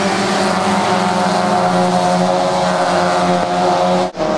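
Mazda Miata race cars' four-cylinder engines running hard at steady, high revs as a pack goes by. The sound cuts out for an instant near the end.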